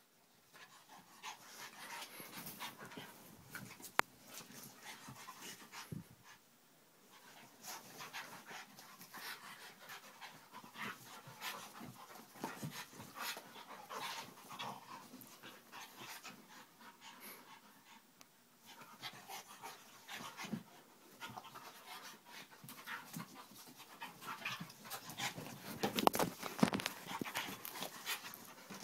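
Two dogs play-fighting, with quick, heavy panting and snuffling breaths and scuffling on a blanket, growing louder near the end. One sharp click about four seconds in.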